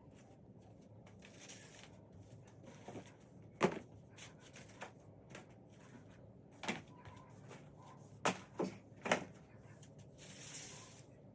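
Objects being handled: about five sharp clicks or taps, the loudest about three and a half seconds in, and two stretches of rustling, one early and one near the end.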